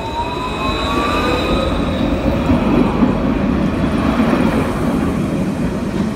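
Alstom Citadis light-rail tram pulling away from the platform and passing close by: the electric traction drive's whine rises in pitch as it accelerates, over wheels rumbling on the rails that grow loudest about halfway through.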